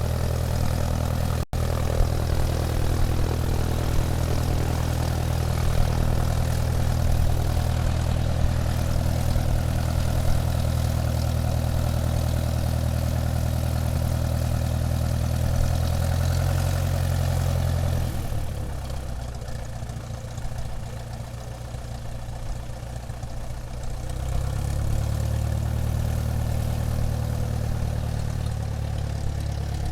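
Airplane engine running steadily as the aircraft taxis. There is a momentary break about a second and a half in, and the engine eases off for several seconds past the middle before picking back up.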